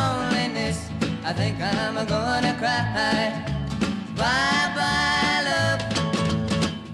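Country-style background music: a melody with long held notes over a steady beat.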